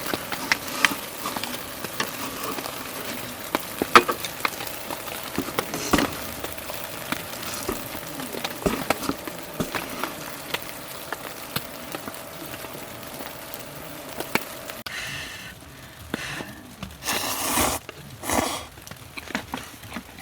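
Rain pattering steadily on the tent fabric, with sharp drips clicking on it. About three-quarters of the way in the patter drops away and a few short rustling bursts follow.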